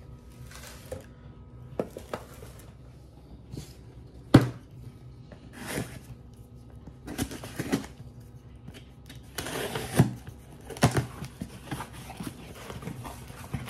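Cardboard shipping boxes being handled on a granite countertop: scattered knocks and thuds as boxes are set down, with the sharpest knock about four seconds in. Scraping and rustling follow as the packing tape is slit with a knife and the cardboard flaps are pulled open near the end.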